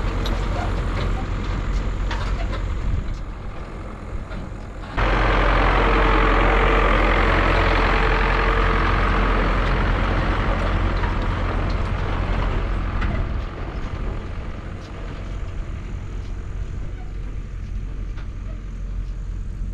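MTZ-82 tractor's four-cylinder diesel engine running as it tows two trailers of round hay bales past, with clatter from the trailers. The sound jumps abruptly louder about five seconds in, then drops as the tractor moves off.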